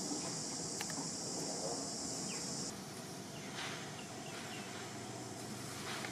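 Steady high-pitched insect drone over outdoor background noise, cutting off suddenly about two and a half seconds in; a few faint short chirps follow.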